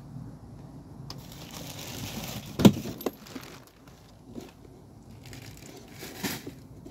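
Household items being moved and handled: rustling and clattering, with one sharp knock about two and a half seconds in and another rustle near the end.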